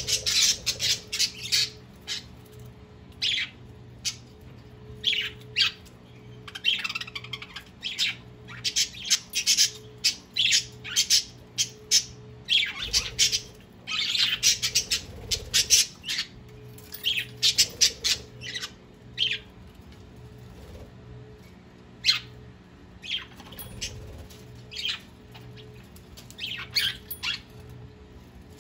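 A flock of budgerigars chattering with many short, sharp squawks and chirps, busiest through the first half and sparser later on, over a faint steady hum.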